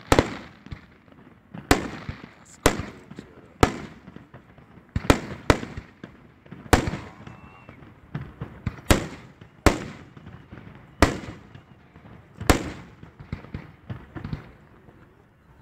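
Aerial fireworks shells bursting: about a dozen sharp, loud bangs at uneven intervals of one to two seconds, each followed by a rolling echo that dies away.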